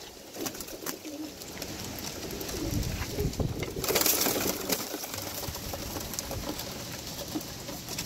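Birmingham Roller pigeons cooing as they crowd together, with scattered sharp clicks. About four seconds in there is a loud flurry of wing flapping as the birds jostle.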